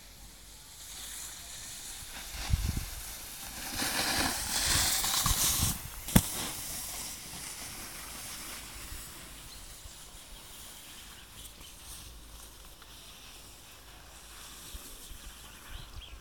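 Snowboard sliding over snow, a scraping hiss that swells loudest about four to six seconds in and then fades. There is a single sharp click just after the loudest part, and a brief low thump of wind on the microphone near the start.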